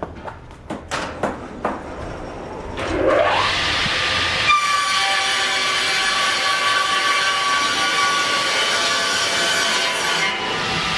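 Wooden boards knock a few times as they are handled on the feed table. About three seconds in, the motors of the TRF SKR-2 twin-saw edger start and spin up in a rising whine. From about four seconds in, the circular saws run in a steady high whine.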